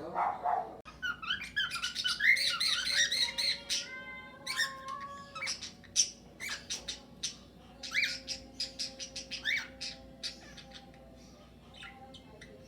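Flock of cockatiels and budgerigars calling in an aviary: busy squawks and chirps at first, a stepped rising whistle about four seconds in, then many short separate calls.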